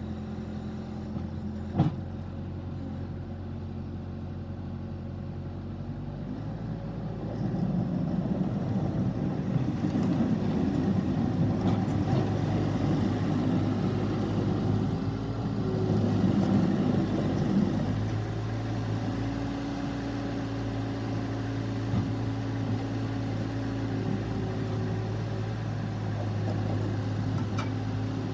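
Case TR320 loader's diesel engine running steadily, with a single sharp knock about two seconds in. About six seconds in it picks up and runs louder and rougher for roughly ten seconds, then settles into a steady, slightly higher-pitched run.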